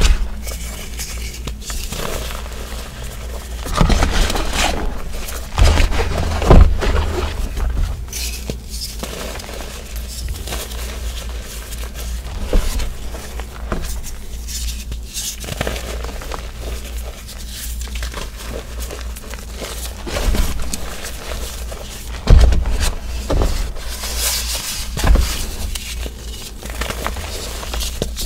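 Hands squeezing and crushing a mass of powdered gym chalk, making a soft, continuous crunching and crackling as the powder packs and crumbles, with a few dull thumps as the hands press down.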